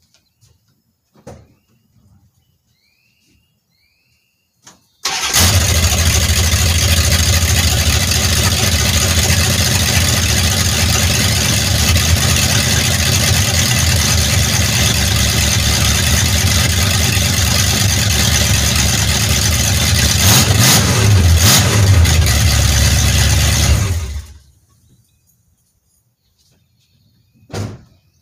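Dodge pickup truck's engine starting abruptly, running steadily and loud for about 19 seconds, briefly revved a few times near the end, then shut off.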